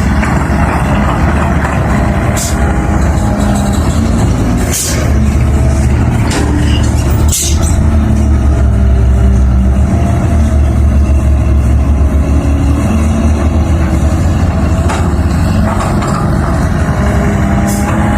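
Diesel engine of a Caterpillar 320 hydraulic excavator running steadily with a low rumble, with a few sharp knocks along the way.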